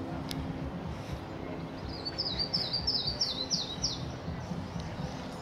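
A songbird singing a quick run of about eight short, falling chirps from about two seconds in to about four seconds in, over a steady low background hum.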